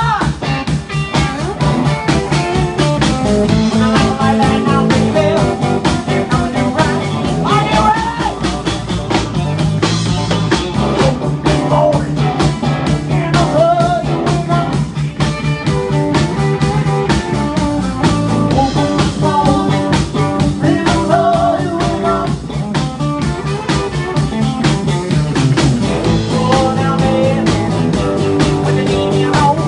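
Live rock trio playing loudly with a steady beat: electric guitar with bent notes, electric bass and a drum kit.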